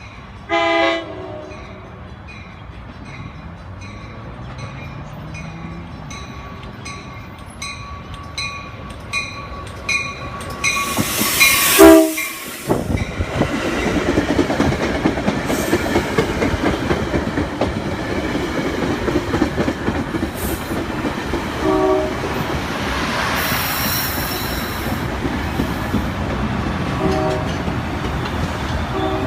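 Passenger train in push-pull operation, cab car leading, approaching and passing at speed. A short horn blast comes about a second in, then a regular high ding about twice a second. About 11 seconds in, a loud rush marks the train arriving, and it gives way to a steady rumble and wheel clatter of the cars going by, with brief horn-like notes twice and again near the end.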